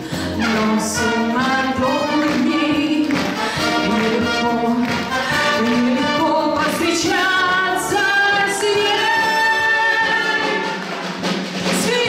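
Live music: a woman singing into a microphone with a brass band of trumpets, saxophones and tuba accompanying her.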